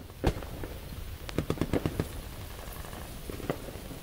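Scattered sharp pops and cracks at irregular intervals, over a steady low rumble.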